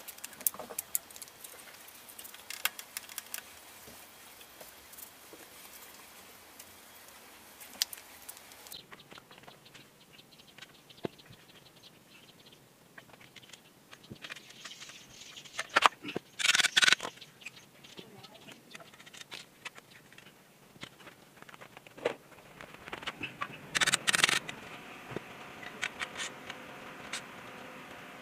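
Hand work on a motorcycle's exhaust: scattered clicks, light knocks and scraping or rustling of hands, cloth and parts. There are louder rough scraping bursts about halfway through and again near the end.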